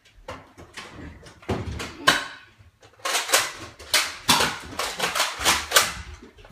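Nerf blaster battle on a hardwood floor: scattered sharp knocks, then from about three seconds in a quick run of clacks and thumps, blaster shots and foam balls striking the floor and walls.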